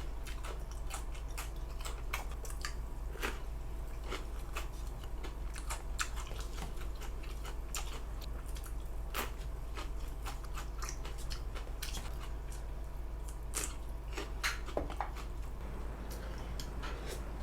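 Close-miked chewing of crisp vegetables such as kimchi or cucumber pepper: irregular small crunches, clicks and mouth noises over a steady low hum.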